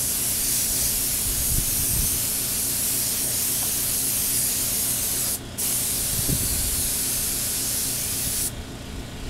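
Compressed-air gravity-feed paint spray gun spraying clear coat onto a motorcycle wheel: a steady hiss that breaks off briefly about five seconds in and stops shortly before the end.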